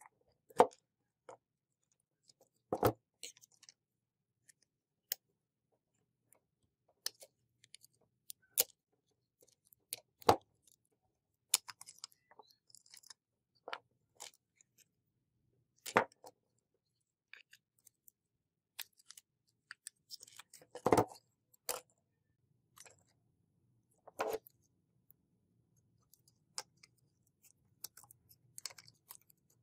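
Small rusty metal parts of a model car clicking and clattering as they are handled and pried apart with pliers and a screwdriver on a tabletop: scattered sharp clicks and taps with quiet gaps, and a brief quick rattle about two-thirds through.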